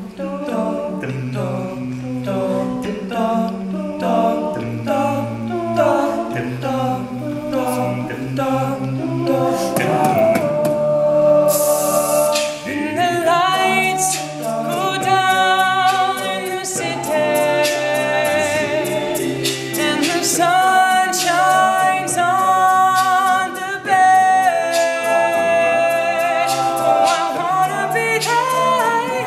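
All-male a cappella group singing, with several backing voices over a steady low bass line. A lead voice joins about twelve seconds in and carries the melody above the group.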